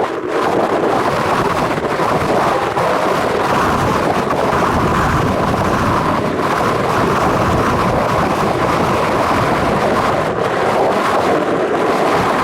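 Strong wind buffeting the microphone: a loud, steady rushing noise with no let-up.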